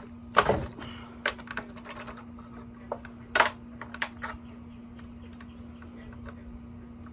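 Scattered clicks and clacks of metal saw parts and a hand tool being handled while the miter saw's blade hardware is taken apart, loudest about half a second and three and a half seconds in, then dying down. A steady low hum runs underneath.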